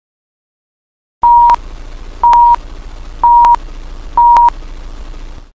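Old-film countdown leader sound effect: four short, steady beeps about a second apart, starting about a second in, each with a sharp click, over a steady film hiss. It cuts off suddenly near the end.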